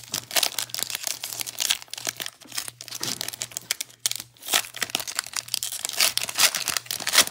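Shiny foil wrapper of a 2021 Panini Absolute Football trading-card pack being torn open and crinkled by hand: a dense, uneven crackle with louder stretches about a second and a half in, around four and a half seconds, and again near the end.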